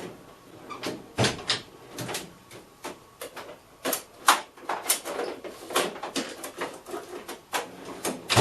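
Irregular clicks, knocks and clatter of hard objects being handled and set down, about two to four a second.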